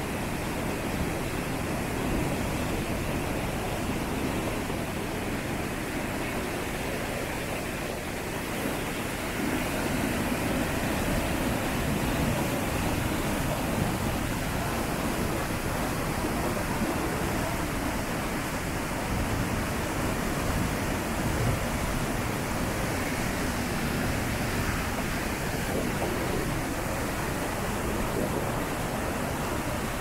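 A mountain waterfall rushing: a steady, even sound of falling water, a little louder from about nine seconds in.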